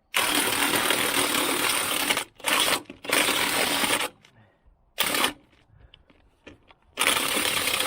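Impact wrench hammering on a stuck lug nut in several bursts: a long run of about two seconds, two shorter runs, a brief blip, then another run of a second and a half near the end, with pauses between.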